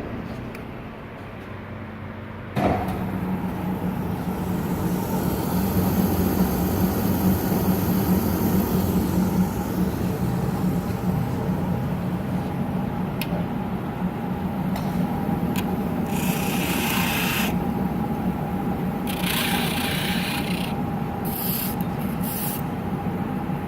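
DoAll V-26 vertical bandsaw switched on about two and a half seconds in, then running steadily with a low hum and a thin whine from its motor and blade. Near the end, several short hissing bursts sound a second or two apart.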